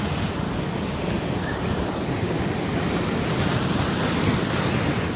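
Heavy sea surf surging over and around rocks: a steady rush of churning white water, with wind buffeting the microphone.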